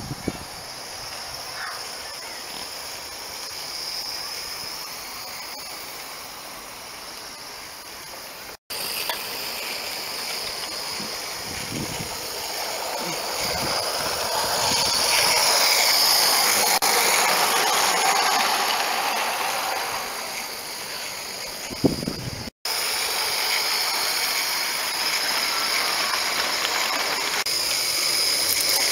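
16 mm scale live-steam model tram locomotive running on a garden railway with a train of wagons, its steam hissing steadily and growing louder as it comes close about halfway through. The sound cuts out briefly twice.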